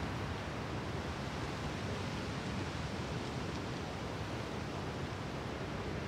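Steady, even wash of surf on a seashore, with no single wave breaking out of it.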